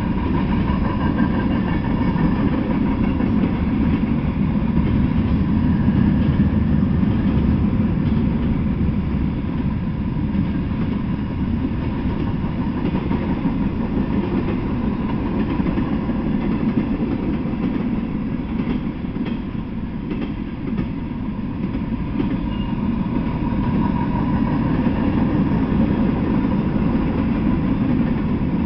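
Freight train of covered hoppers, a boxcar and autorack cars rolling past: a steady, heavy rumble of steel wheels on the rails. It eases a little past the middle, then builds again.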